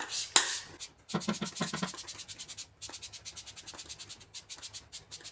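Cast-aluminium engine accessory support bracket being scrubbed by hand in a tray of engine-cleaning solution: a couple of longer strokes, then from about a second in a fast run of short scrubbing strokes, about eight a second.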